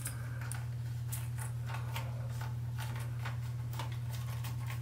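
Light metallic clicks and ticks as the chrome nut of a metal shower hose is handled and threaded by hand onto a handheld shower head, over a steady low hum.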